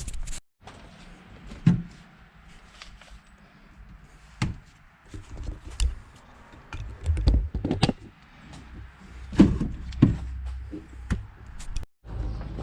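Scattered knocks and thuds over a low rumble, broken by two sudden drops to silence, one about half a second in and one near the end.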